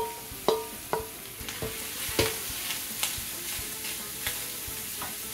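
A wooden spoon knocks and scrapes against a stainless steel bowl and skillet, about five ringing metallic knocks in the first two and a half seconds, as fresh corn kernels are scraped into the hot pan. After that the kernels are stirred in the skillet with a soft, steady sizzle as they start to toast.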